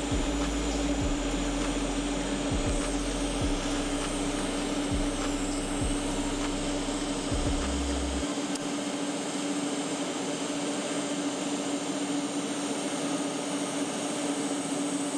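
TIG welding arc running on a steel exhaust pipe: a steady hiss with a constant buzzing hum underneath.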